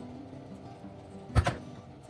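A sharp thump with a lighter knock right after it, a little past halfway through, over soft background music.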